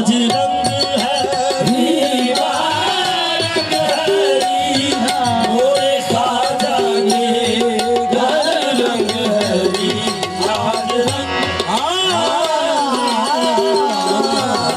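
Qawwali-style devotional music with tabla drumming and melodic lines that bend and glide, playing loudly and without a break.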